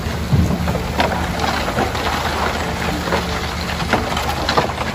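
Concrete mixer truck's engine running steadily while wet concrete slurry pours down the discharge chute and splashes onto the ground, with irregular slaps of clumps landing.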